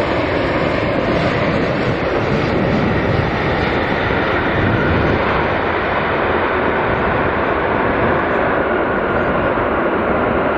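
Airbus A380's four jet engines running on the runway, a loud, steady rush of noise that neither rises nor falls.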